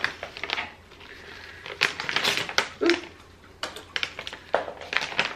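Plastic dog-treat pouch crinkling and crackling in the hands as it is pulled open, with a dense patch of crinkling about two seconds in and scattered sharp crackles after it.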